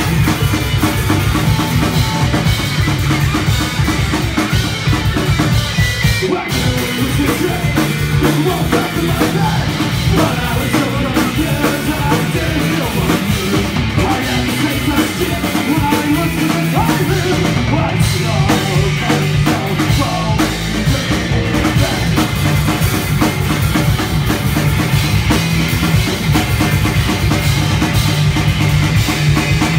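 Punk rock band playing live: electric guitar, electric bass and drum kit.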